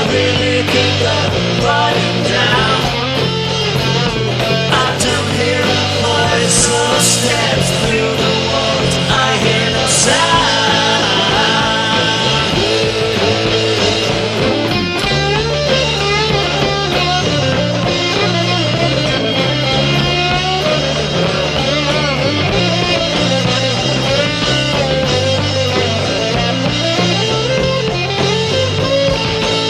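A rock trio playing live: guitar, bass guitar and drums, with the bass moving between steady held notes under a continuous, dense band sound.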